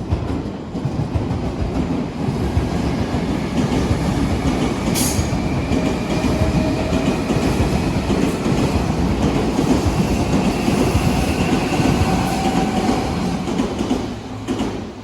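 An Odakyu Line electric train passes close by with steady wheel-on-rail rumble and clatter, and faint thin whining tones from the wheels or motors. There is one sharp click about five seconds in. The sound falls away just before the end as the train clears.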